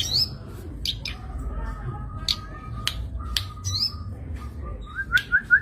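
Zitting cisticola (cici padi) calling: a series of sharp, very short clicking notes at irregular intervals. Near the end comes a quick run of five short rising notes. A low steady rumble runs underneath.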